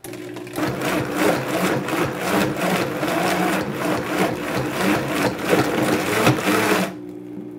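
Vitamix blender motor running and chopping raw boneless chicken thighs into ground meat, with a choppy, churning texture over a steady motor hum. It cuts off about seven seconds in.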